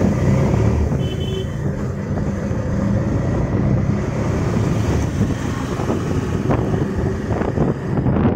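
Strong storm wind buffeting a phone microphone in a heavy, steady rumble, with a car going by on the road.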